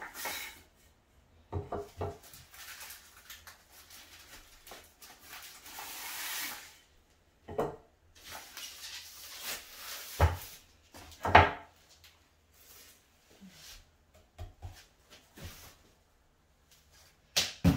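Plastic packaging rustling as parts are unwrapped, broken by about half a dozen sharp wooden knocks as chair parts are handled and set down, the loudest about eleven seconds in.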